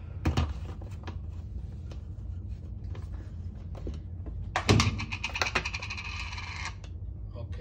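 A spice container being fetched and opened for chili powder: a knock about a third of a second in, then another knock about halfway through followed by roughly two seconds of rapid clicking and rattling that stops sharply. A low steady hum runs underneath.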